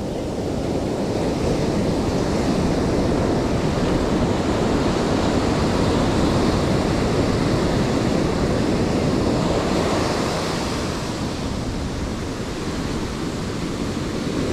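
Sea surf breaking and washing over a rocky shore, a steady loud rush, with some wind noise on the microphone.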